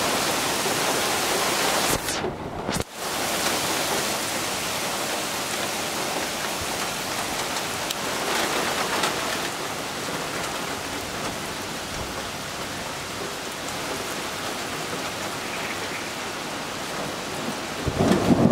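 Heavy thunderstorm rain, a steady dense hiss, which briefly cuts out between two and three seconds in. Near the end a low rumble of thunder starts to build.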